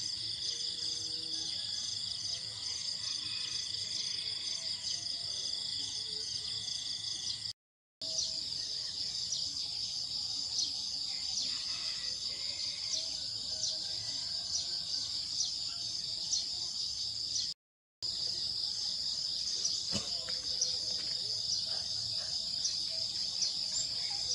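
Insects such as crickets or cicadas chirring steadily in a high, fast-pulsing drone, broken off for a moment twice.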